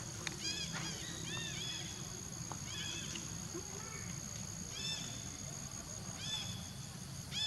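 Animal calls: short, high chirps that rise and fall in pitch, coming singly or in twos and threes every second or so, over a steady low background noise and a faint, steady high tone.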